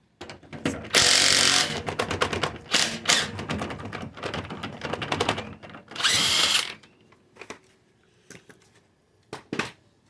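Mechanic's power tool and ratchet working on rusted bolts: two short, loud bursts of tool noise about five seconds apart, with rapid clicking and metallic rattling between them.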